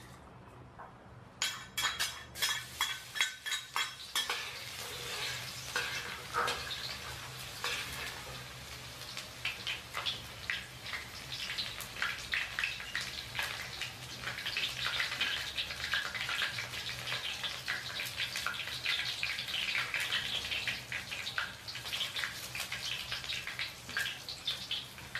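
Metal utensil knocking and scraping in a cooking pan while food sizzles in hot oil. Rapid knocks come in the first few seconds, then a steady sizzle with scattered clicks. A faint low hum runs underneath.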